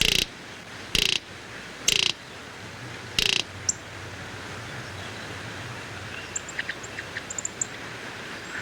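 Four short, harsh, rasping bird calls about a second apart, most likely a greater roadrunner. Later come a few faint, high, quick chirps from smaller birds, over a steady outdoor hiss.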